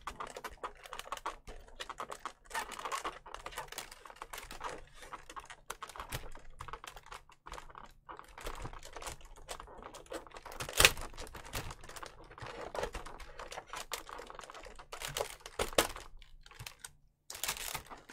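Irregular small clicks and light rustling of plastic statue parts and packaging being handled and freed from their twist ties, with one sharper click about eleven seconds in.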